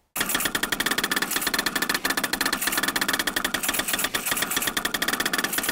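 Desktop FDM 3D printer printing: its stepper motors give a steady whine over a fast run of ticks as the print head and bed shuttle back and forth.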